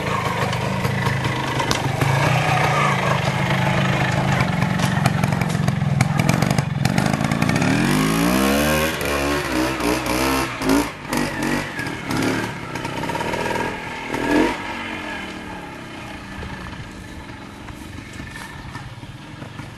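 Vintage trials motorcycle engine running steadily under load, then revving up in a sweeping rise about eight seconds in. A few short, sharp throttle blips follow, and the engine grows fainter near the end.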